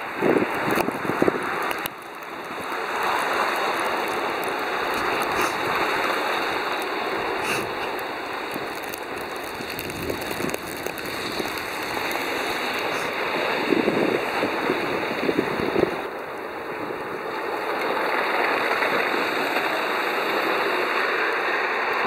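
Traffic on a slush-covered road: the tyres of passing vehicles, among them a pickup truck, hiss and swish through wet snow, the noise swelling and fading as each one goes by. A few soft thumps come near the start and again around two-thirds of the way through.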